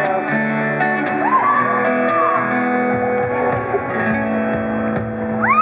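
Live band music led by guitar, played through the PA during a sound check run-through. Near the end, a voice rises into a long held note.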